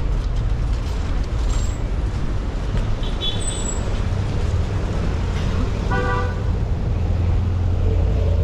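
Motorcycle riding in traffic, its engine and road noise giving a steady low rumble, with a short vehicle horn beep about six seconds in.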